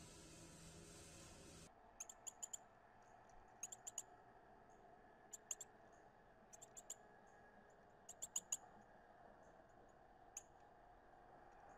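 Brief steady hiss, then after a sudden change, short sharp chip calls of a northern cardinal, coming in quick clusters of three or four, several times over.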